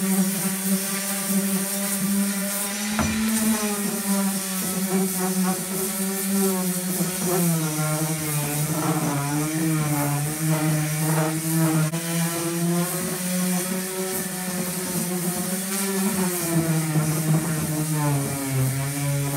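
Electric random orbital sander running while sanding the bare wooden seat of a barstool, a steady hum whose pitch dips and recovers several times as the sander is pushed across the wood.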